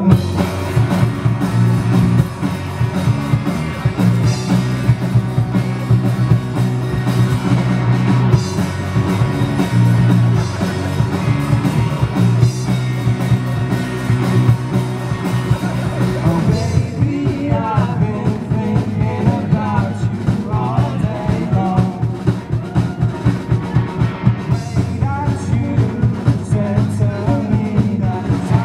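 Live rock band playing: electric guitars over a drum kit. A little past halfway the high cymbal wash drops away, leaving a tighter, pulsing beat.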